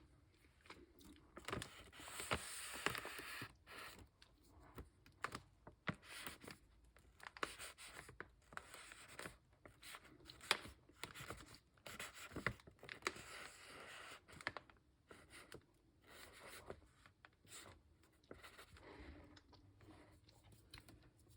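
Quiet, irregular handling noises close to the microphone: scratching, rustling and small clicks and taps coming in short clusters.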